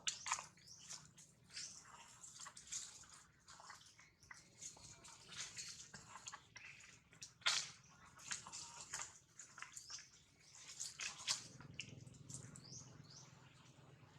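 Irregular wet clicks and drips, short and scattered at an uneven pace, over a faint low hum.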